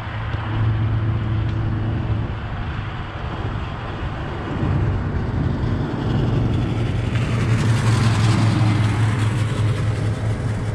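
Steady outdoor city traffic rumble with a hiss over it that swells about seven seconds in and eases again.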